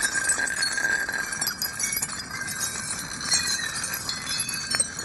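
A broken slab of glass sliding and scraping across asphalt, with small glass fragments clinking and tinkling around it. A few louder clinks come near the end.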